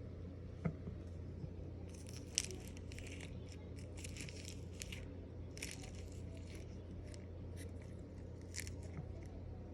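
Slime being squeezed and worked by hand, giving runs of crackly, crunchy little pops from about two seconds in, over a steady low hum.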